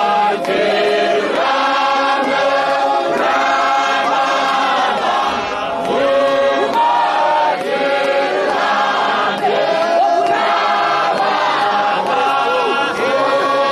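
Congregation of many voices singing a Shona hymn together.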